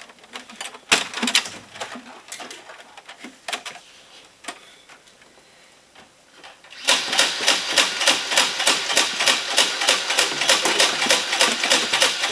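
A few scattered knocks and clicks, then about seven seconds in a Nerf blaster fires darts in rapid succession: an even mechanical clatter of about four to five shots a second that runs on without a break.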